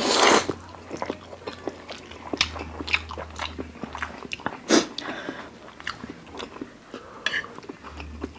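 People chewing and slurping spicy instant noodles, with many small wet mouth clicks, a loud slurp at the start and a shorter one about halfway through.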